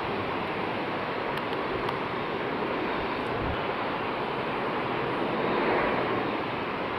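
Boeing 767-400's jet engines on landing approach: a steady rushing noise that swells slightly about six seconds in.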